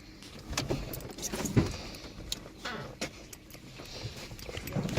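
A Honda Civic being pushed by hand with its engine off: tyres rolling, with scattered clicks and knocks, the sharpest about one and a half seconds in.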